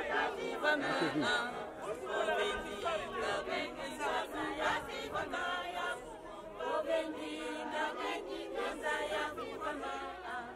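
A group of women singing together as a choir while marching.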